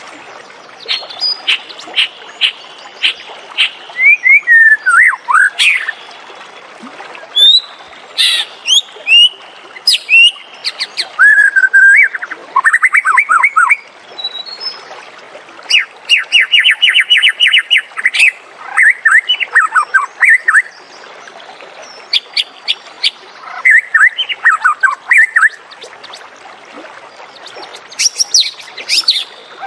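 White-rumped shama singing a varied song of loud whistled phrases, pitch glides and rapid trills, with short pauses between phrases.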